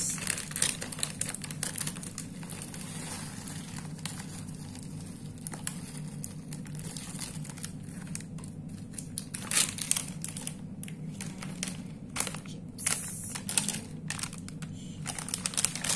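Foil snack bag of potato chips crinkling in irregular bursts as it is handled, over a steady low hum.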